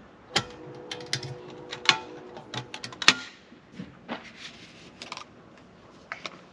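Irregular clicks and knocks of hard plastic and containers being handled. One knock about half a second in rings briefly, and a sharper click comes about three seconds in.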